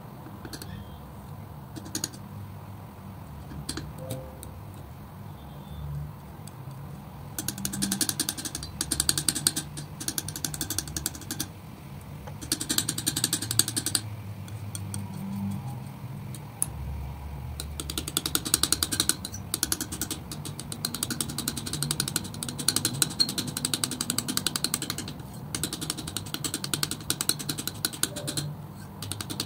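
Metal palette knife spreading and mixing thick wet acrylic paint on a smooth surface: a dense, rapid clicking crackle in several stretches, starting about seven seconds in, after a few faint taps.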